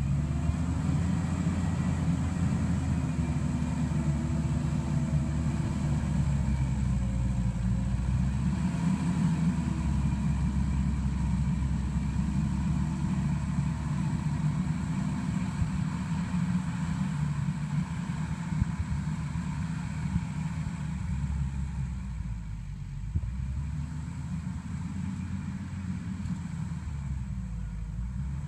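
Mustang MTL325 compact track loader's diesel engine working under load while pushing dirt, its pitch rising and falling as the operator works the machine, growing fainter near the end as it moves away.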